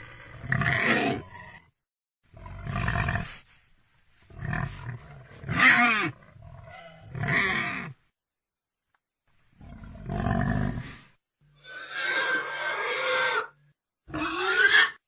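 Domestic pig calling in a run of about seven separate calls, each a second or two long with shifting pitch, broken by short pauses and a longer silence around the middle.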